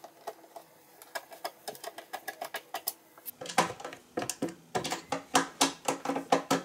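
Hand screwdriver turning a screw through a small metal bracket into the underside of a chest of drawers' top panel: a quick run of small clicks and creaks, growing louder and more uneven about halfway through as the screw tightens.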